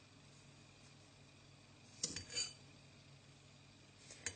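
A spoon clinking lightly against a jar as sugar is spooned over chopped onion: two quick clinks about two seconds in and one sharp tap near the end, with quiet between.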